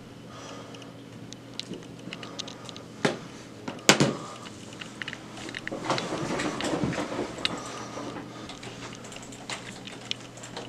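Handling noises in a small room: scattered clicks, two sharp knocks about three and four seconds in (the second the loudest), then a couple of seconds of rustling and clicking.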